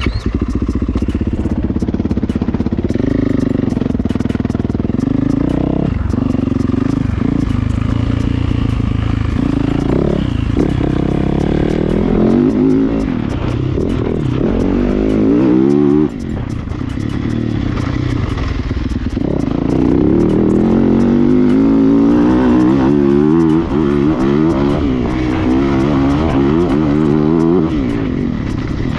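Yamaha motocross bike's engine revving hard and easing off again and again as it is ridden at speed, the revs rising and falling with each throttle change, with a sudden drop about halfway through.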